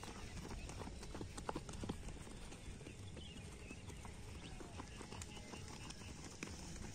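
Footfalls of a group of runners passing on a dirt and grass track, many irregular quick thuds over a low steady rumble.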